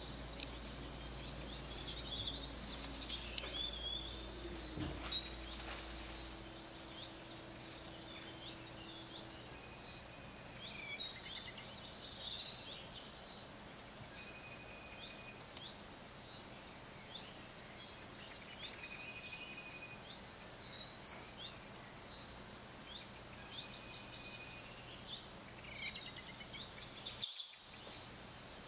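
Small birds chirping in repeated short bursts outdoors, over a steady high whine and a low hum that fades out about six seconds in; the sound drops out briefly near the end.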